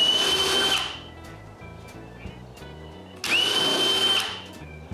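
A small high-speed power tool runs in short bursts with a steady high whine. It cuts out just under a second in and starts again about three seconds in, spinning up quickly, for about a second. It is being used to clear the remains of old wooden plugs and glue from a stair post. Light background music plays underneath.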